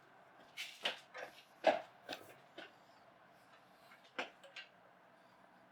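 Scattered light clicks and knocks of a hand tool working on metal while a bolt on an old drill press is tightened, irregular, with a quiet spell in the middle.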